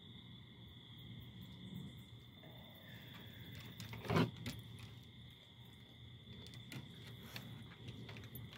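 Crickets trill steadily in the background. A single sharp thump about four seconds in is the loudest sound.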